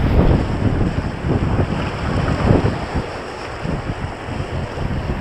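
Strong wind buffeting the microphone over the steady wash of sea waves breaking on the shore.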